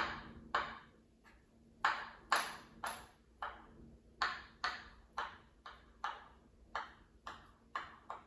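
Knife chopping a hard-boiled egg on a wooden cutting board: a run of sharp knocks of the blade on the board, about two a second.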